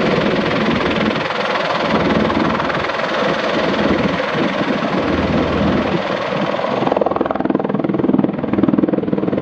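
Bell Boeing CMV-22B Osprey tiltrotor running, its two Rolls-Royce AE 1107C turboshaft engines and proprotors making a loud, steady noise with a rhythmic rotor beat. About seven seconds in, the hiss falls away and a faster pulsing beat of the rotors comes forward.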